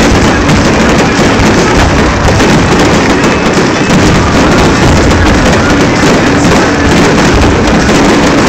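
A dense barrage of fireworks bursting in quick succession, the bangs running together into one continuous, very loud rumble with no gaps.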